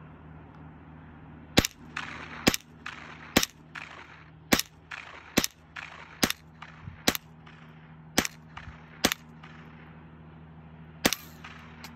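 .22 rimfire rifle fired ten times without a suppressor, about one shot a second with a longer gap before the last. The first five are standard rounds and crack louder with a trailing echo. The last five are subsonic rounds and sound somewhat quieter, described as way quieter.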